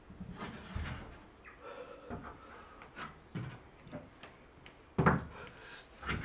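Hands and feet knocking and slapping on the holds of a steep plywood climbing board as the climber moves, a scatter of dull wooden thuds with the loudest about five seconds in.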